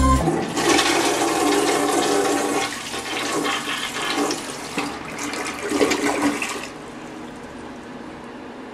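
Toilet flushing: water rushes and gurgles down the bowl for about six seconds, then drops to a quieter steady hiss.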